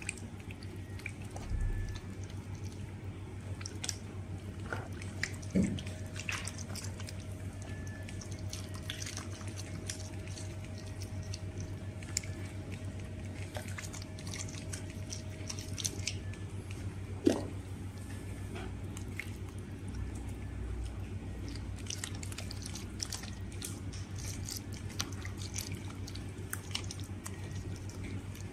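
Liquid plaster being poured into a cornice mould and worked into its carved detail by hand: scattered wet splats, drips and squelches over a steady low hum.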